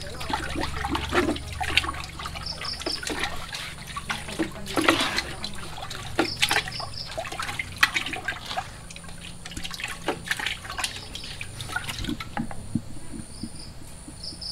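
Water splashing and trickling in a fish tank in irregular spurts.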